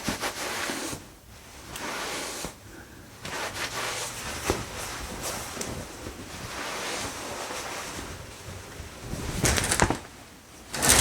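Towel rubbing over skin and hair in long swishing strokes, with a louder burst of fabric rustling near the end.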